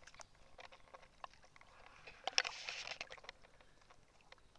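Dog digging with a front paw in wet sand and shallow water: scattered scrapes and small splashes, with a louder flurry of scraping and splashing about halfway through.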